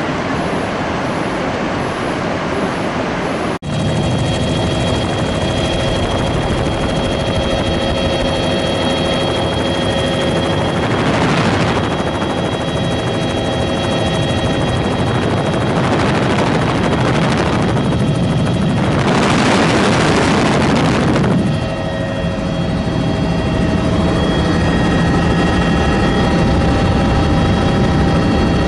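Helicopter in flight, heard as a loud steady engine and rotor rumble with a steady whine over it. About a third of the way in the sound cuts and changes, and in the second half three rushing swells of noise rise and fall.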